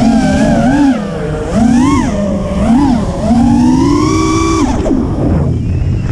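FPV racing quadcopter's brushless motors (HGLRC Flame 2306 2450kv) and propellers whining, the pitch swelling up and down in quick bursts of throttle. After a longer climb the pitch falls sharply a little past four and a half seconds in, leaving a low rumble, and rises again near the end.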